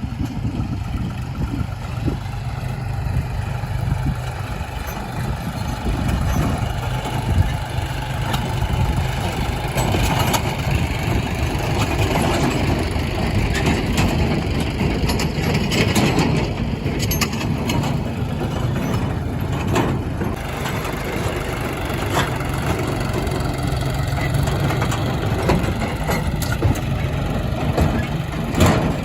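Diesel engines of a JCB backhoe loader and tractors running steadily while mud is dug and loaded, the engine working harder through the middle stretch. A few sharp knocks sound, about seven seconds in, around sixteen seconds and near the end.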